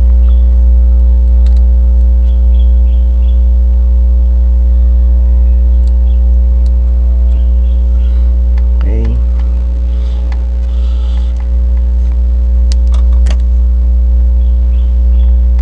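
A loud, steady, machine-like hum with a constant drone of several tones, and a few light clicks.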